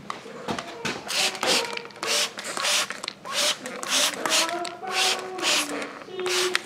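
Repeated short hissing squirts, about two or three a second, as hot water is sprayed onto a wallpaper border to soak it for stripping.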